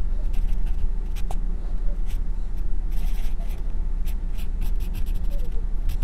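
Graphite pencil scratching on drawing paper in quick, short sketching strokes, over a steady low hum.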